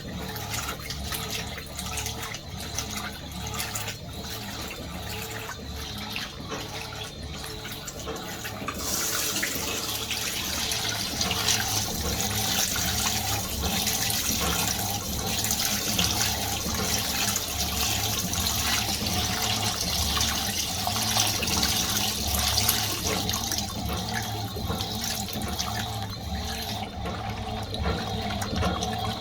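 Fisher & Paykel MW511 washing machine filling its tub with water: a steady rush of water that gets louder and brighter about nine seconds in, over a low hum.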